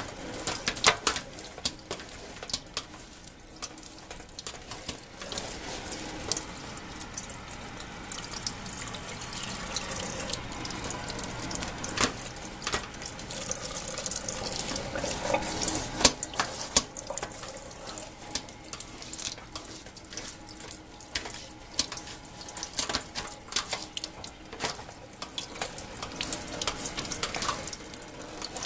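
Tap running into a sink while a furnace filter is rinsed under it, the water splashing with irregular spatters and clicks.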